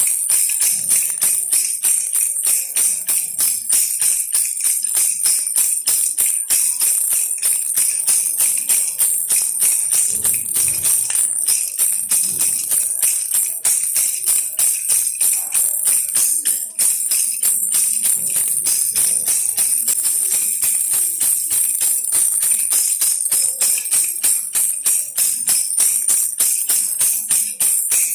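Baby rattle toy shaken over and over in a quick, even rhythm, giving a continuous bright, high jingle.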